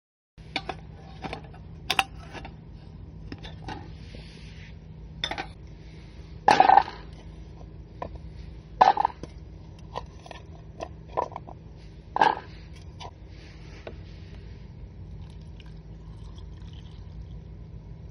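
Scattered clinks and knocks of cooking utensils and cookware being handled during food preparation, the loudest about six and a half, nine and twelve seconds in, over a low steady hum.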